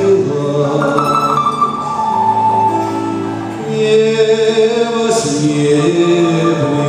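Slow Russian folk song sung with accompaniment from a garmoshka button accordion and a balalaika, with long held notes.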